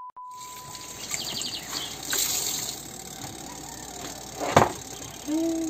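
Water running steadily. A steady high beep stops about a second in, and there is a sharp click a little over four seconds in.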